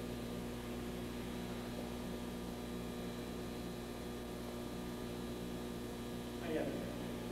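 Steady electrical hum made of several level tones, with a light hiss: the background noise of an old video recording. A short faint sound comes near the end.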